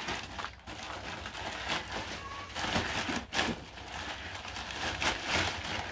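Plastic grocery bags rustling and crinkling as food is unpacked and handled, in irregular crackles.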